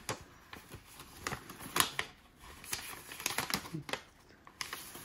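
Paper instruction leaflet being handled and leafed through: light rustles and small scattered clicks, the sharpest about two seconds in.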